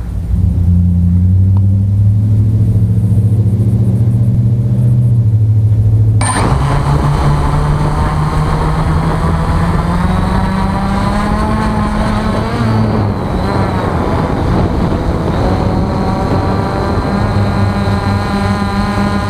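Electric motors and propellers of an RC aircraft, heard close up from on board. A low steady hum runs until about six seconds in. Then the motors spin up suddenly to a loud whine with several pitches, which rise and fall as the throttle changes, and the aircraft lifts off.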